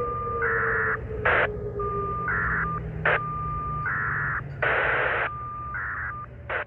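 Federal Signal Modulator tornado siren winding down at the end of its wail, its falling tone fading out about two seconds in, over a low steady hum. Above it, crows caw in short repeated calls against a steady high tone, with sharp clicks between them.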